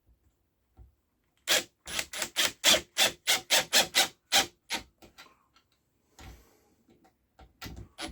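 About ten quick back-and-forth rasping strokes over three seconds, then a few faint knocks.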